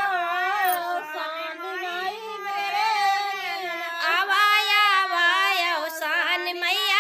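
A high female voice singing a devotional folk song (geet) to Avsani Maiya, in continuous melismatic phrases with no clear instrumental accompaniment.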